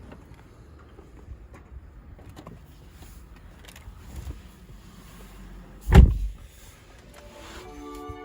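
Inside a new Honda Vezel's cabin: faint clicks and ticks over a low hum, a single heavy thud about six seconds in, then electronic chime tones stepping in pitch near the end, as the power system comes on.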